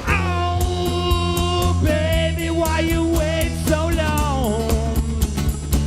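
Rock band playing: steady bass and drums under a melody line of held notes that slide and waver from one pitch to the next.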